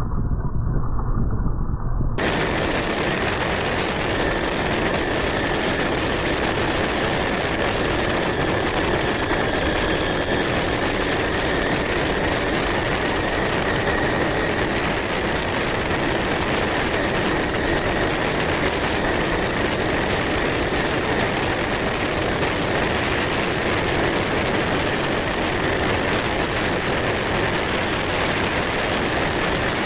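Yamaha RXZ 5-speed two-stroke single-cylinder engine, freshly rebuilt with a new piston and fitted with a cat silencer exhaust, running steadily at a 40–50 km/h cruise under a constant rush of riding noise. The sound turns fuller and brighter about two seconds in.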